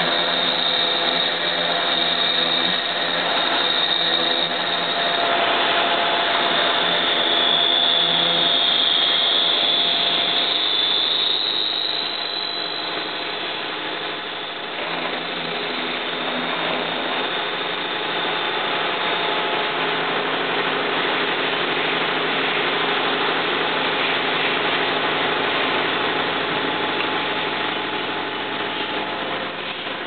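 Manual milling machine running, its end mill cutting the steel handle of a rifle bolt with a high squeal that is loudest at first and fades about twelve seconds in. The steady hum of the mill's motor and spindle goes on throughout.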